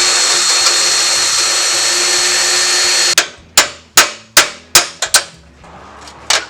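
Electric drill running with a steady high whine while drilling out rivets on the toy truck's metal body; it stops about three seconds in. Then a hammer strikes metal, about seven quick blows in two seconds and one more near the end.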